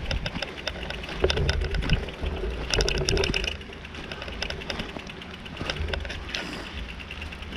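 Bicycle freewheel ticking in quick runs as the bike is pushed uphill, over a low rumble. The clicking is densest and loudest about three seconds in.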